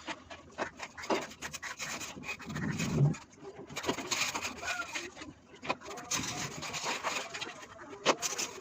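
Irregular scraping and rubbing with scattered knocks, typical of hand work on building material; the loudest moment is a low thud about three seconds in.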